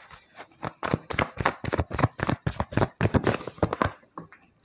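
Tarot cards being shuffled in the hands: a quick, even run of card clicks, about six a second, that stops about four seconds in, followed by a few faint ticks as a card is laid down.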